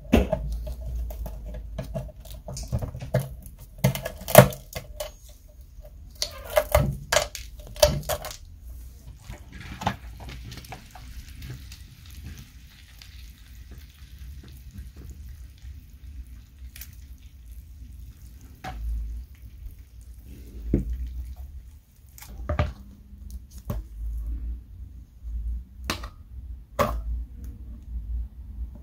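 Metal fork scraping and clicking against a waffle iron's plate through melted lollipop candy, then a soft hiss as the hot molten candy is tipped out onto a paper plate, followed by scattered sharp taps of the fork.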